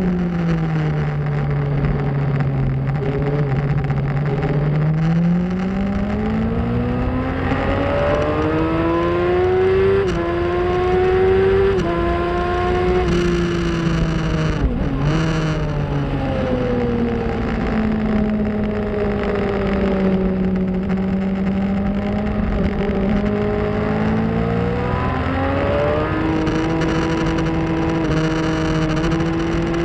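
2004 Yamaha R1's inline-four engine at race pace, heard from an onboard camera: the revs sink at the start, climb through gear changes, drop away sharply about halfway under braking, then climb again near the end.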